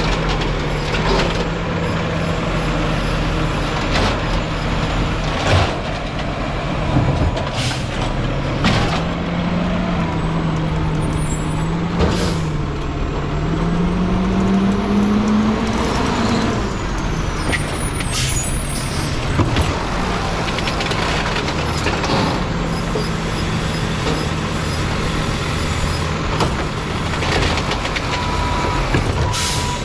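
Freightliner Condor garbage truck's turbo-diesel engine running steadily, revving up about halfway through and then settling back. Several short hisses and knocks sound over it.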